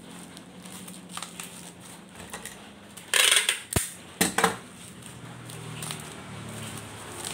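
Packing tape pulled off a handheld tape dispenser: a loud rasp about three seconds in, a sharp click, then a second, shorter rasp. Bubble wrap crinkles quietly while it is handled.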